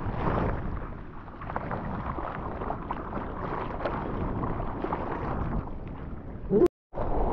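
Whitewater rushing and splashing around a surfboard at close range, with wind and spray hitting the microphone as the surfer paddles and rides through broken foam. The sound cuts out for a moment near the end.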